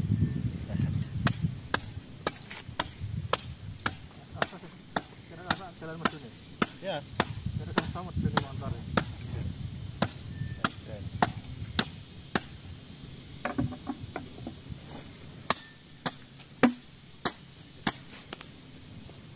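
Wood being chopped by hand: a steady run of sharp, knocking strikes, about two a second.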